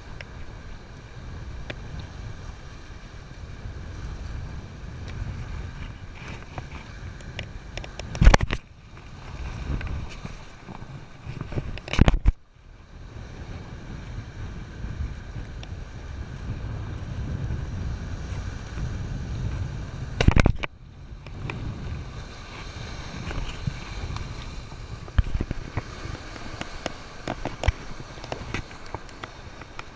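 Strong wind buffeting the microphone over surf washing against the jetty rocks, broken by three loud bumps.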